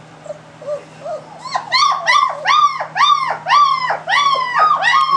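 Three-week-old German Shepherd puppy whining: short high cries that rise and fall, faint at first, then loud and repeated about twice a second from about a second and a half in.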